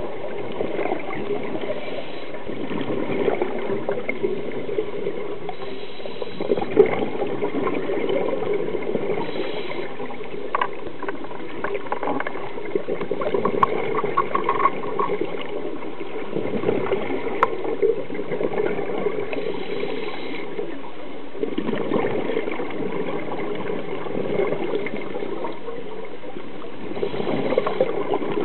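A scuba diver's regulator heard underwater: a steady bubbling rush that swells now and then with bursts of exhaled bubbles. A short run of quick clicks comes about halfway through.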